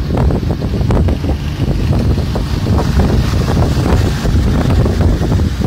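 Wind blowing hard across the microphone: a loud low rumble that flutters and rises and falls unevenly.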